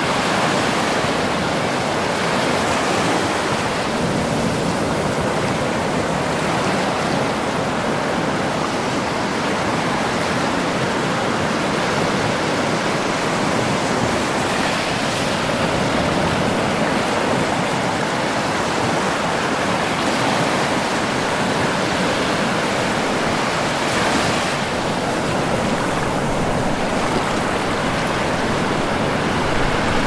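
Ocean surf breaking and washing up on a sandy beach: a steady rushing of water that swells a little when larger waves break, about halfway through and again near the end.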